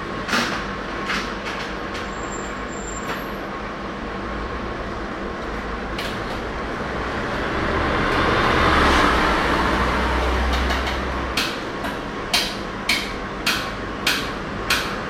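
A vehicle passes by, its rumble swelling for a few seconds and fading, over a steady background hiss. Near the end come a series of sharp taps, about two a second.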